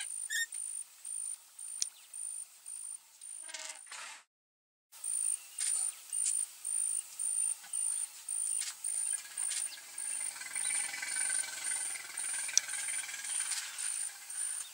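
An insect chirping in a steady rhythm, about two short high-pitched pulses a second. The sound drops out briefly about four seconds in.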